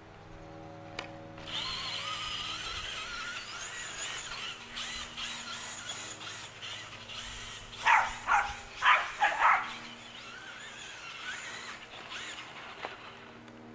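Traxxas Slash RC car's brushless motor whining as it drives, its pitch rising and falling with the throttle. A little past the middle, a dog barks about five times in quick succession, louder than the motor.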